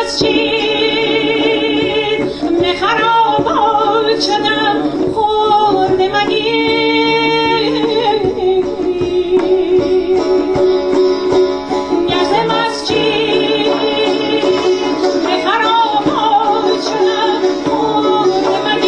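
Persian classical music: a woman singing with rapid trilling vocal ornaments (tahrir), accompanied by a plucked tar and a hand drum.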